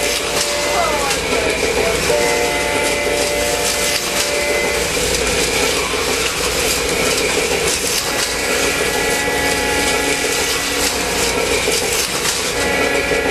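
Model diesel passenger train running over the track with a steady rushing noise, its diesel horn sounding in long blasts, about three of them. A slot car whines past about a second in.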